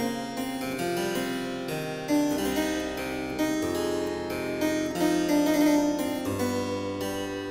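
Solo harpsichord playing a Baroque keyboard suite in F-sharp minor: a continuous run of plucked notes, with low bass notes coming in twice beneath the melody.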